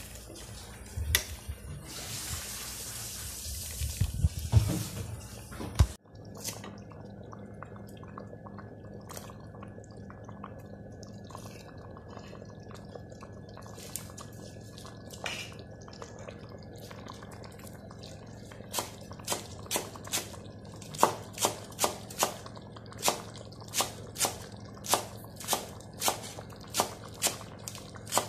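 A metal ladle stirring and scooping thick rice porridge in a large aluminium pot for the first few seconds, until a sudden cut. Then a low steady hum with a few light clicks, and from about two-thirds of the way through a knife chopping green onions on a wooden cutting board in even strokes, about two a second.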